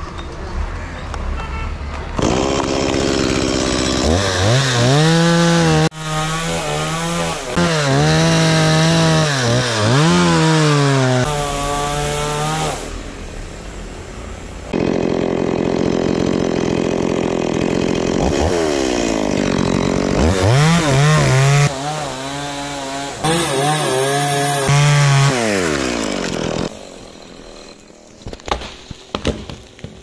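Stihl chainsaw cutting through the trunk of a dead coconut palm. It runs high with its pitch dipping and rising under load, drops to a lower steady speed in the middle, and then makes a second cut. It falls back near the end, followed by a few sharp knocks.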